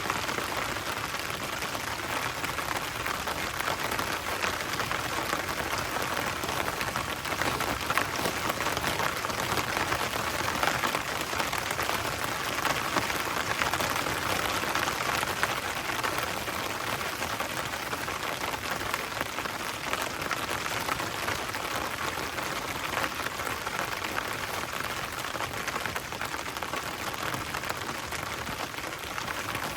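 Heavy rain falling steadily, a dense patter of many drops striking a surface.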